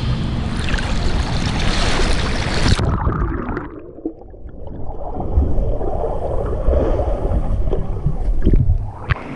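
Pool water splashing as a swimmer pushes off into front crawl, then the sound turns suddenly muffled about three seconds in as the camera goes underwater: the swimmer's arm strokes, kicks and exhaled bubbles heard from below the surface.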